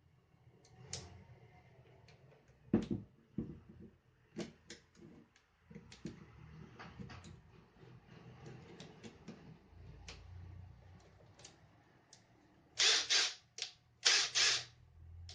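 Clicks and knocks of a Makita DTD153Z cordless impact driver being handled and set up, then two short bursts of its brushless motor spinning near the end.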